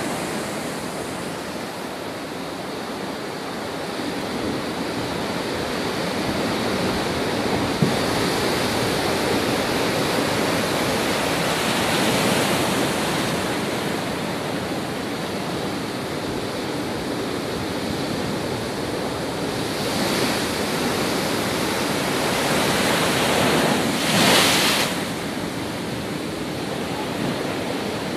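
Cyclone-driven storm surf: heavy waves churning and breaking against a concrete pier in a continuous rush of water. Several waves surge louder, the loudest near the end.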